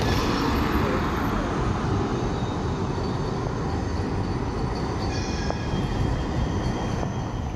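Metro Sul do Tejo Siemens Combino Plus light-rail tram passing at street level: a steady rumble of wheels on rails. Faint high-pitched tones join in about five seconds in.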